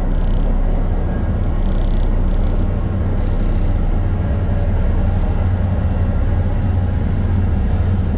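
A ship's engine running steadily underway: a constant, loud, low drone.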